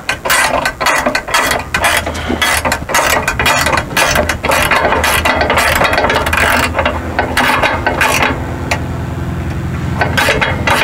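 Ratchet wrench clicking in quick runs as it backs off the nuts on the carriage bolts holding a 5th wheel camper's landing gear leg.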